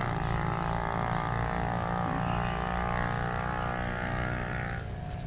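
An engine running with a steady drone; its higher tones fade out near the end.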